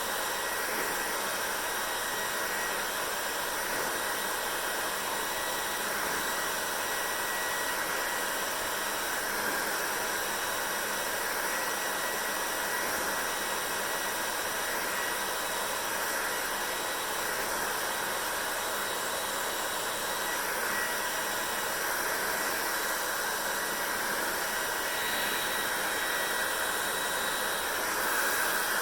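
Hair dryer running steadily: an even rush of air with a thin steady whine, growing slightly louder near the end.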